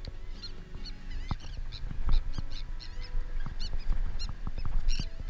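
Birds calling over and over with short, high chirps, several a second, over a low rumble of wind on the microphone. A long-handled sand scoop digs into beach sand with a few dull knocks.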